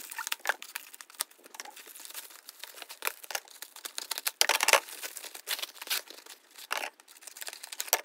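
Tightly sealed packaging on a tripod stand being crinkled and pulled off by hand: irregular crackles and rustles, with a louder rip of crinkling about four and a half seconds in.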